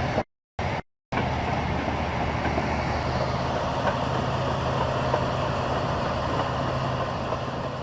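Heavy diesel engine running steadily under load, with a broad mechanical rumble. The sound cuts out twice briefly in the first second.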